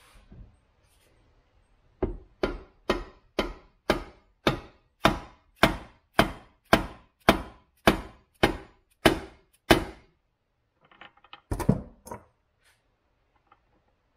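A steady run of about fifteen sharp knocks on the cast-iron transmission case of a 1960s Craftsman ride-on mower, about two a second, as the gearbox cover is tapped down to seat it on the case. A louder knock with some clatter follows a couple of seconds after the run stops.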